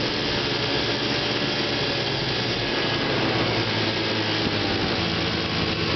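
Three Johnson JW 3-hp two-stroke twin outboard motors running together and driving a boat, a steady mixed drone of several engines. The center motor is cavitating badly, its propeller losing its grip on the water.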